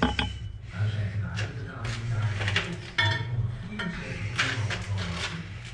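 Ceramic tiles and tools clinking and scraping as tiles are handled, over a steady pulsing background music track.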